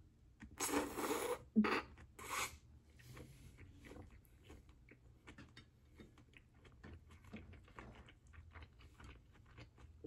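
A mouthful of turkey burger chewed close to the microphone: a few louder, noisy chews in the first two and a half seconds, then soft, wet clicking mouth sounds that go on steadily.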